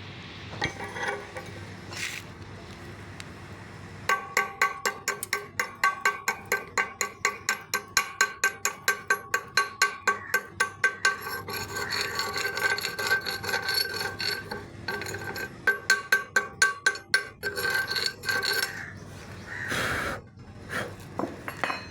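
Rapid, regular strokes on a piece of steel that rings with each one, about four a second, typical of cleaning slag off a fresh stick weld. A couple of isolated knocks come first, and the strokes run for most of the time before stopping.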